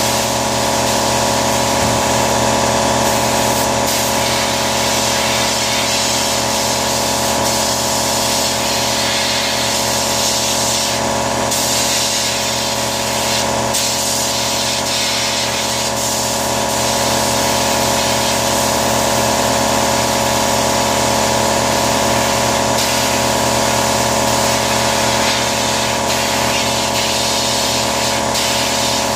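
Sandblaster spraying steadily, a constant hiss of air and sand, over a steady machine hum.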